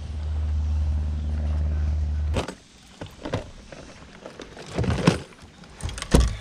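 Electric trolling motor on a bass boat humming steadily, then cutting off abruptly about two and a half seconds in, followed by a few scattered clicks and knocks of tackle being handled on the deck.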